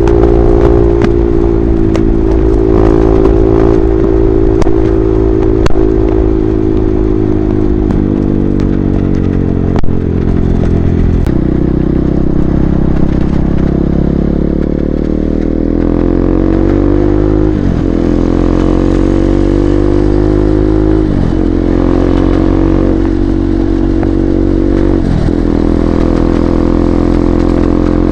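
KTM RC 390's single-cylinder engine running through an SC Project replica slip-on exhaust at highway speed. The note sags briefly, then climbs as the bike pulls, with three quick gear changes in the second half, each a short sharp dip in the engine note.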